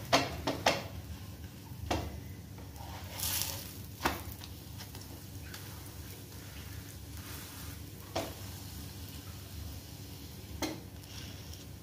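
Oiled aloo paratha frying on a hot tawa with a faint sizzle, a short louder sizzle about three seconds in. A spatula presses and shifts it, knocking against the pan several times.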